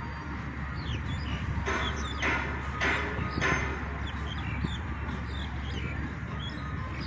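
Small birds chirping, a string of short falling calls, over a steady low outdoor rumble. A few louder hissy bursts come between about two and three and a half seconds in.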